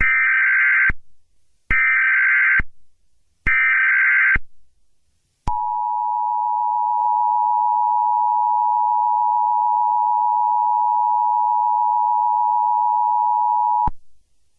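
Emergency Alert System broadcast tones: three short, buzzy bursts of SAME digital header data about a second apart, then the steady two-tone attention signal (853 and 960 Hz sounding together). The attention signal holds for about eight seconds and cuts off abruptly.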